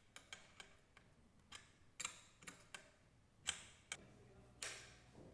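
Faint, irregular clicks and taps of hand tools (an Allen key and spanner) working the steering stem bolt and nut of a children's tricycle, the sharpest about three and a half seconds in.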